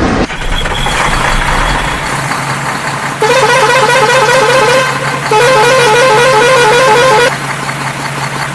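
Vehicle horn sounding two warbling blasts of about two seconds each, the pitch wavering quickly up and down, over a steady low hum.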